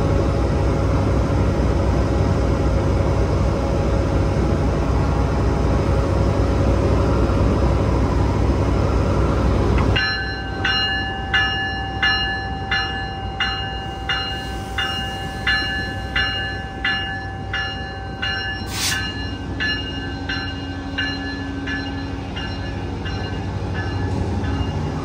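GO Transit MP54 diesel locomotive running loudly beside the platform as it gets ready to pull out. About ten seconds in, a ringing bell takes over, striking steadily about one and a half times a second for some nine seconds, with a short sharp hiss near the end of the ringing, as the train departs.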